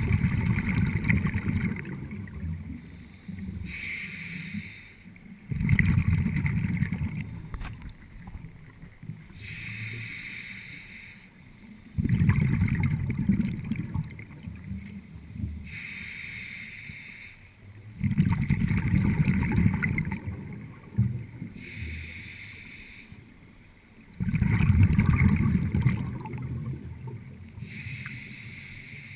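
Scuba diver breathing through a regulator underwater: a hiss on each inhalation, then a loud low rumble of exhaled bubbles lasting a second or two. The cycle repeats about every six seconds, five breaths in all.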